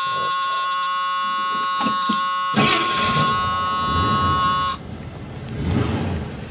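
1982 Ford F-100's dash warning buzzer sounding steadily with the ignition on, stopping a little over four and a half seconds in. About two and a half seconds in, the engine cranks and starts on a cold start and keeps running.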